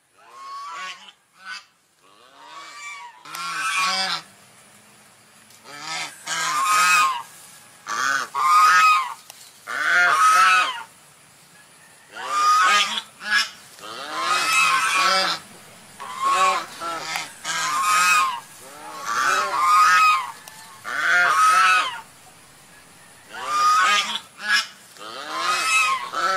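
Swan giving a long series of loud honking calls, each under a second and rising then falling in pitch, often in close pairs, every second or two.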